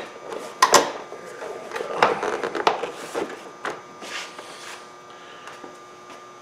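Plastic air box and intake parts of a BMW 325i being handled and fitted by hand: several sharp clicks and knocks with scraping rubs over the first four seconds or so, then quieter.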